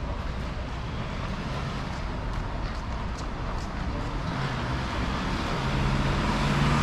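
City street traffic noise: a steady rumble of passing vehicles, with one vehicle's engine growing louder over the last few seconds as it draws near.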